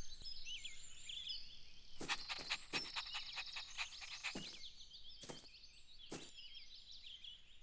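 Faint cartoon garden ambience of birds chirping, with a run of light taps about two seconds in and a few single taps after.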